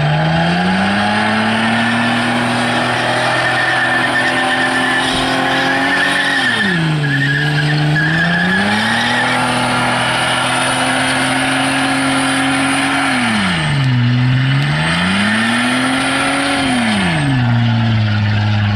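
Holden VS Commodore's 3.8-litre V6 revving hard in a burnout, held high with the rear tyres spinning and squealing. The revs dip and climb back twice, about 7 and 14 seconds in, and fall away again near the end.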